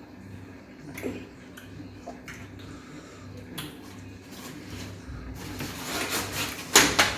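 Eating noises from a meal of fufu and soup eaten by hand: a few faint clicks and taps of dishes, then a louder stretch of rustling and mouth noise near the end, topped by one sharp burst.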